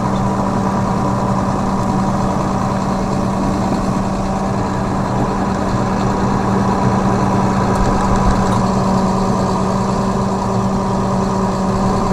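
Tractor engine running at a steady speed, a constant even drone with no change in pitch.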